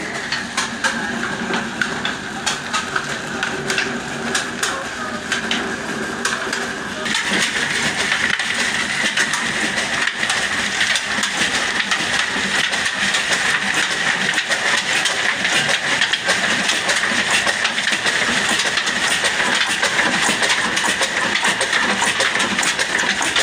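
Slow-speed Kala diesel oil engine (22 HP, 275 rpm) running steadily, driving belt-driven machinery through a flat belt, with a dense clatter from the engine and drive. The sound gets louder and brighter about seven seconds in.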